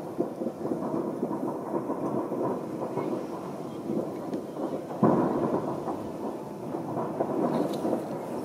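Distant fireworks booming in a continuous rolling rumble of overlapping bangs, with one louder bang about five seconds in.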